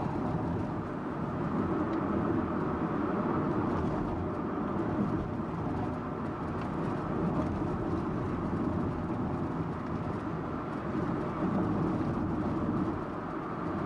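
Steady road and engine noise inside the cabin of a Subaru Impreza Sports Wagon (GG2) while driving along, an even rumble and hiss without any distinct events.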